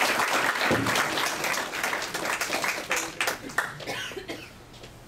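Audience applauding, dying away about three to four seconds in, with a few voices talking as it ends.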